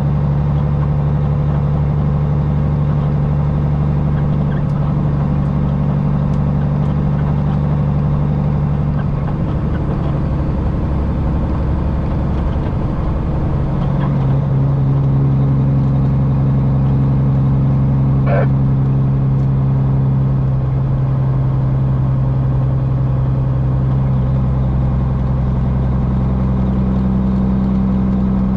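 Straight-piped Cummins diesel engine of a Peterbilt semi running steadily while pulling a loaded tanker trailer. Its note settles at a new pitch several times.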